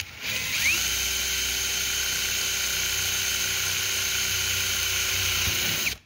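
Cordless drill running at full speed, boring a bolt hole through a gusset and both walls of a metal tube. It spins up with a rising whine, holds a steady pitch for about five seconds, then stops suddenly near the end.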